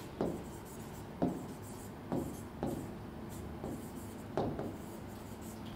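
A marker pen writing on a board, in a series of short strokes with brief pauses between them as words are written out.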